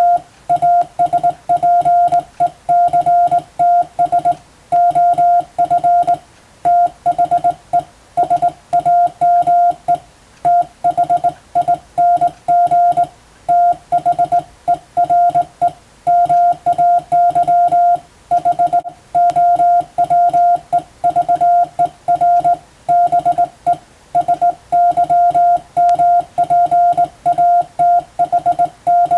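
Morse code (CW) sent by hand as a single steady beep keyed on and off in short dots and longer dashes at an even sending speed, spelling out Latin-letter telegram practice text.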